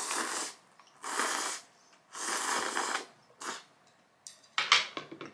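Slurping ramen noodles: several airy slurps in a row, each half a second to a second long, with a shorter one about three and a half seconds in.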